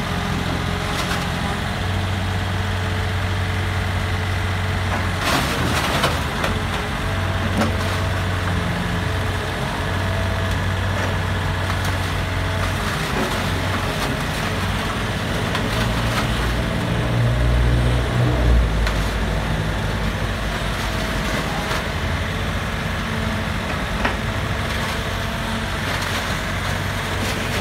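Komatsu PC30 mini excavator's diesel engine running steadily as the machine works itself onto a dump truck bed. A few sharp metallic clanks of its steel tracks and bucket come through, and the engine rumbles harder under load about two-thirds of the way through.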